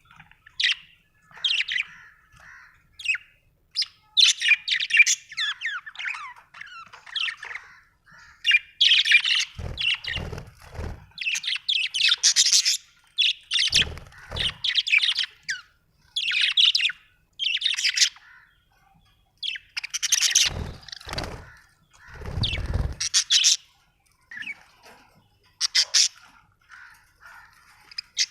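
Budgerigars chirping and warbling in quick, irregular bursts of high twittering with short gaps. A few low thuds are mixed in.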